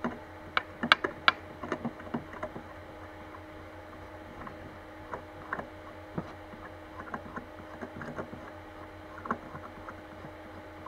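Scattered light clicks and taps from a hand turning the spring-loaded bed-leveling knobs under the print bed of a Creality CR-10 V2 3D printer, loosening them to bring the bed closer to the nozzle. A steady low hum runs underneath.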